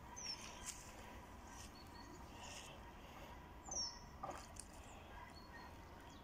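Quiet outdoor ambience with a few short, high bird chirps that slide down in pitch, the loudest about four seconds in, and some faint clicks.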